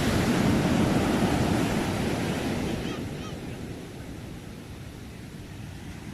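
Sea waves washing on the shore: the surge of a wave that has just broken is loud at first, then recedes and fades over about three seconds into a quieter wash, which begins to swell again near the end.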